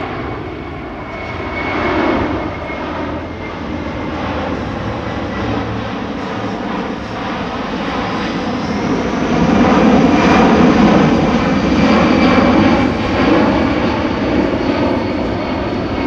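Boeing C-17 Globemaster III's four turbofan jet engines during a low, slow flyby. A steady jet rumble with a faint whine grows louder a little past halfway through.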